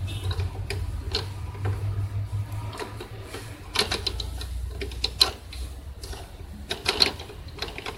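Scattered sharp plastic clicks and knocks as the ink cartridges in the carriage of a Canon PIXMA iP2770 inkjet printer are handled, the loudest near four, five and seven seconds in, over a low steady hum.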